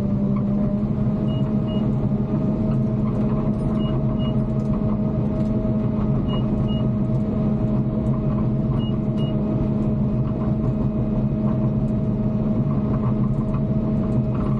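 Bulldozer diesel engine running steadily under load as it pushes fill, heard from inside the cab. About every two and a half seconds a pair of short high beeps sounds, four times in all.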